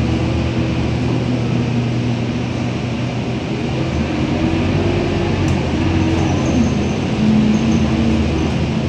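Scania K230UB single-deck bus heard from inside the passenger cabin while driving: its five-cylinder diesel engine and drivetrain give a steady low hum. The engine note shifts in pitch as the bus changes speed and gets a little louder near the end.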